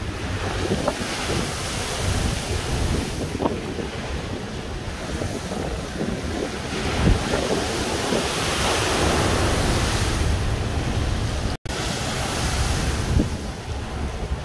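Storm surf and gale wind, with wind buffeting the microphone in a heavy low rumble under a continuous hiss of breaking waves and blown spray. The hiss swells about midway, and the sound cuts out for an instant about twelve seconds in.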